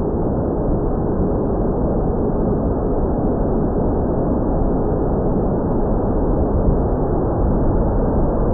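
Steady, loud rushing noise, strongest in the lows, with no clear motor pitch: wind buffeting the microphone in flight.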